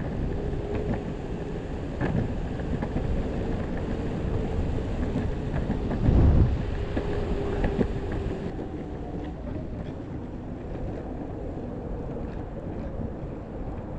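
Wind buffeting the microphone and wheel rumble while riding a Possway T3 electric skateboard, with a faint steady whine from the board. A strong gust hits about six seconds in, and the hiss eases a little after about eight seconds.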